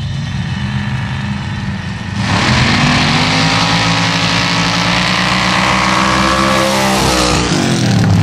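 Formula Offroad sand drag cars' engines idling on the start line, then launching about two seconds in and running flat out, their pitch climbing. The pitch falls again near the end as the throttles close.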